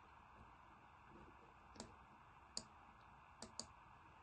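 Four faint, sharp computer mouse clicks, the last two in quick succession.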